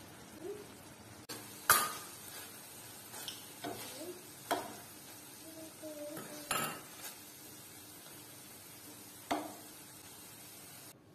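Diced chicken frying in a metal pan with a steady faint sizzle, stirred with a wooden spatula that scrapes and knocks against the pan about five times, the loudest knock about two seconds in.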